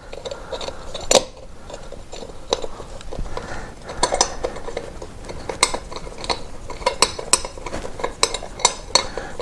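Irregular metallic clinks and taps of hand tools and bolts being handled as a part is fitted to a motorcycle.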